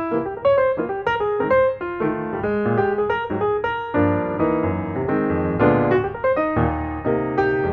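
Background piano music: quick runs of single notes over chords.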